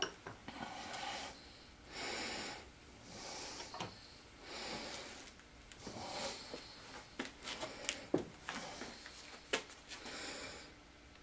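Hand-filing a piece of copper pipe clamped in a vise: about five rasping strokes, roughly one every second and a half, followed by a run of sharp clicks and taps in the second half.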